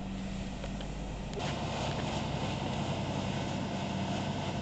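Car fire: a steady engine hum, with a loud rushing hiss setting in about a second and a half in and holding.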